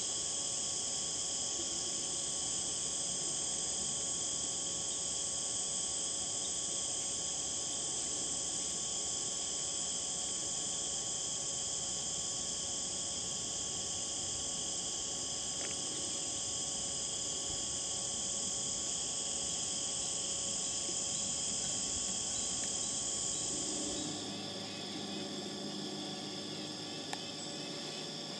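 Late-summer insect chorus: a steady, unbroken high-pitched trilling from many insects together. About 24 seconds in, the chorus drops a little and changes character.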